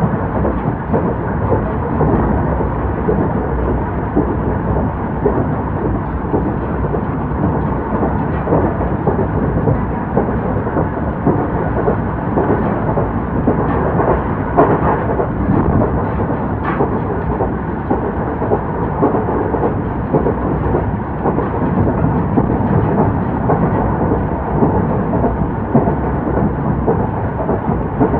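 Old-type passenger coach hauled by an EF70 electric locomotive, running along the line: a steady, loud rumble of wheels on track, with a few faint clicks around the middle.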